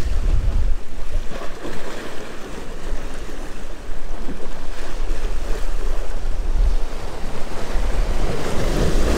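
Sea waves washing against the rocks of a jetty, with gusty wind buffeting the microphone.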